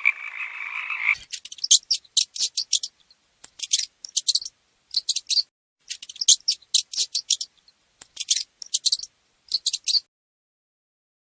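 A frog chorus croaking that cuts off about a second in, followed by short bursts of rapid, very high-pitched clicking calls from an animal, roughly one burst a second, that stop shortly before the end.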